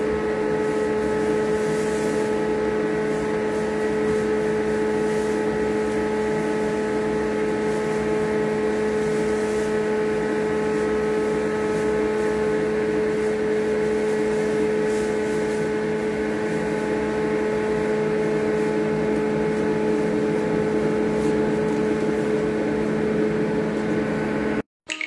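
Steady machine hum of an electric motor running in a cow stable, a constant drone with several fixed tones that never changes. It cuts off suddenly near the end.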